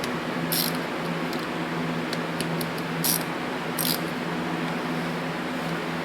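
Steady low hum, with three short light clicks or taps about half a second, three and four seconds in, and a few fainter ticks between them.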